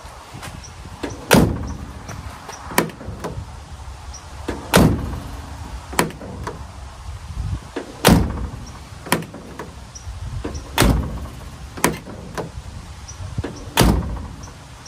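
Steel cab door of a 1952 Willys truck shut five times about every three seconds, with a lighter latch click as it is reopened between shuts. The freshly lubricated latch now catches and releases freely.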